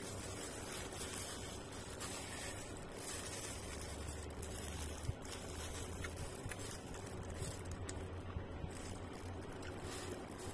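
A hand in a clear plastic glove squishing and mixing rice and fried chicken in a white foam takeaway box, the glove crinkling and scraping against the food and box. A steady low hum runs underneath.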